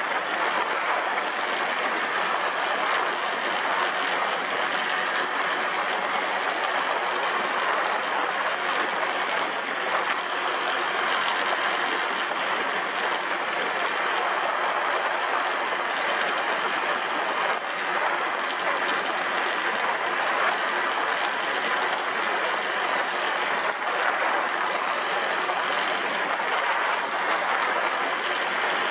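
ATV engine running steadily during a ride, with an even rushing noise over it and no pauses or changes in pace.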